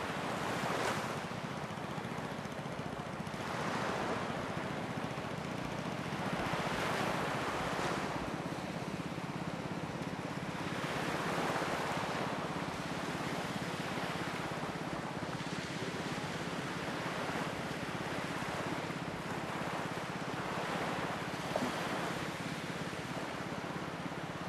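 Small waves washing onto a sandy shore, swelling and falling back every three to four seconds over a steady hiss of wind.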